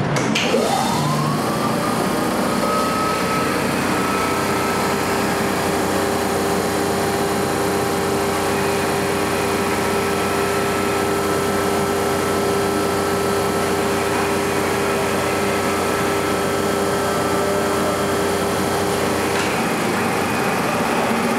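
Electric train air compressor running on a display stand: its motor spins up with a rising whine that climbs for about three seconds and then holds steady over a constant mechanical hum. Near the end there is a click and the deeper part of the hum drops away.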